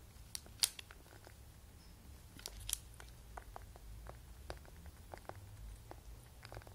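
A black lory's beak tapping and pecking at a laptop screen: irregular sharp little taps and clicks, the loudest two about half a second and two and a half seconds in, over a low steady hum.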